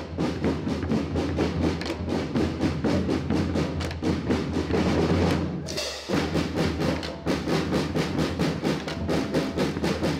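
School marching band's drum line playing a cadence: snare and bass drums beating a steady rhythm of several strokes a second, with a brief break about six seconds in.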